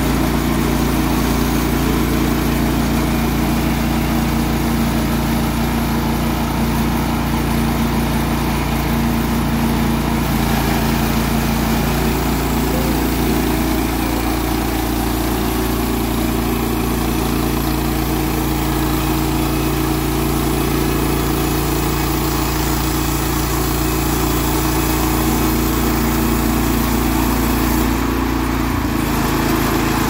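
Gasoline engine of a TMG Industrial 27-inch portable band sawmill running steadily under load while the band blade saws through a log. The tone shifts slightly about ten seconds in and again near the end.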